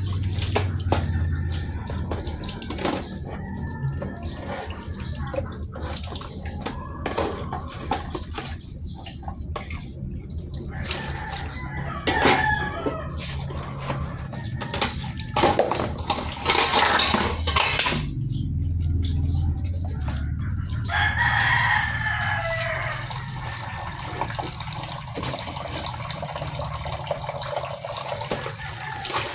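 Hand dishwashing: dishes and plastic containers clattering in a basin under a weak trickle from the tap. Partway through, a rooster crows in one long call that falls in pitch.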